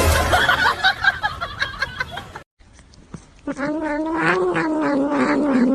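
A cat's long, drawn-out yowl: one sustained call of about two seconds in the second half. Before it comes a stretch of mixed noise and a brief break.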